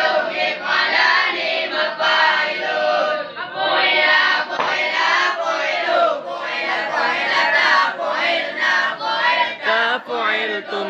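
A group of boys chanting Arabic verb conjugations together in a sing-song unison recitation: the tashrif of fa'ala–yaf'alu.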